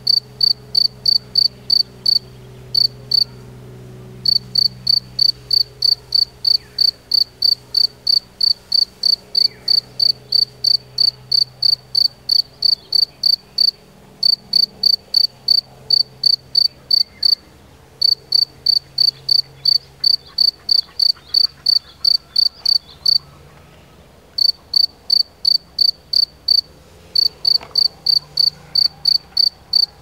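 A male European field cricket (Gryllus campestris) calling, rubbing its wings together to make loud, high chirps at about three a second, with a few short breaks in the rhythm.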